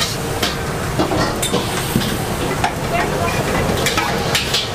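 Metal ladle scraping and clinking against a steel wok as noodles are stir-fried, with irregular sharp clanks over a steady frying sizzle.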